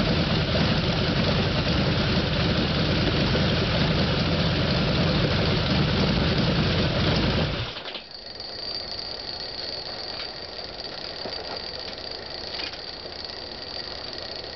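Jacobs L-4MB seven-cylinder radial aircraft engine running steadily, then cut off suddenly about eight seconds in. After it stops, a faint steady high whine and a few light ticks remain.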